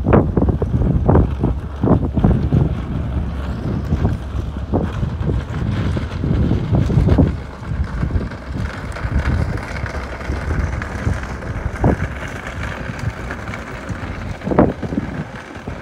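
Wind buffeting the microphone in irregular gusts, a low rumble that eases somewhat about halfway through.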